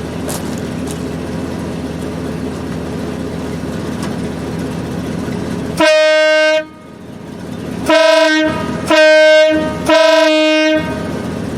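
Aftermarket air horns on a Hummer sounding four blasts over the vehicle's idling engine: one longer blast about halfway through, then three shorter ones in quick succession. Both horns now run off their own compressors.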